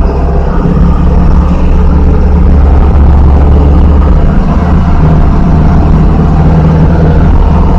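Hino Dutro truck's diesel engine running hard in a steady, loud, low drone, straining under an overload of sand on a steep uphill climb.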